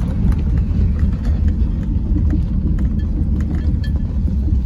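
Car interior noise while driving slowly along a rough street: a steady low rumble of engine and tyres, with a few faint light clicks or rattles.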